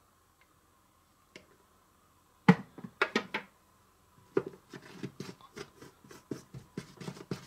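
A loud knock and a short clatter about two and a half seconds in as small plastic cups are set down, then a small wooden spoon stirring a thick, pasty frosting mix in a plastic bowl: quick scraping and knocking strokes, about three or four a second.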